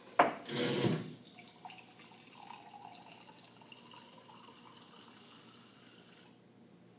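Lab tap turned on with a sharp knock and a loud gush, then water running steadily into a glass beaker for about five seconds before it is shut off abruptly.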